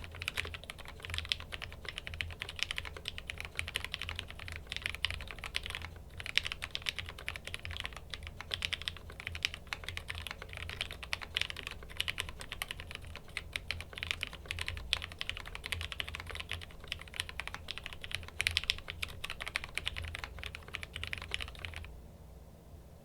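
Continuous typing on a 65% mechanical keyboard with lubed Gateron Yellow linear switches on a POM plate in a stacked acrylic case: a dense, fast run of keystrokes that stops about a second before the end.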